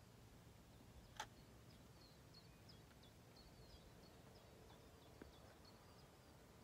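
Quiet shoreline ambience with a low background rumble. A small bird gives a run of short, high chirps, and a single sharp click comes about a second in.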